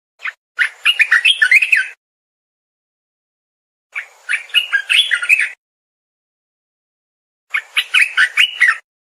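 Olive-winged bulbul singing: three short song phrases, each a quick run of chirping notes lasting about a second and a half, a couple of seconds apart.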